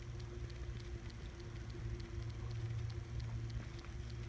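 Faint scattered ticks and crackles of dirt and grit being handled by a work glove, over a steady low hum.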